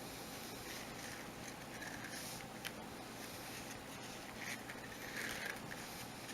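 Faint rustling and brushing of hemp cord being handled and pulled as a square knot is tied, with a single light click a little under three seconds in.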